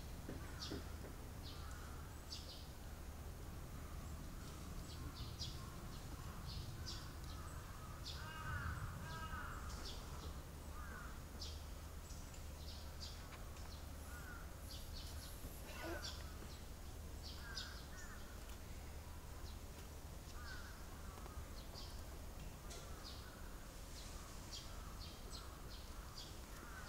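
Birds calling outdoors: many short, high chirps scattered throughout, with a few lower, curving calls, the loudest about nine seconds in, over a steady low background hum.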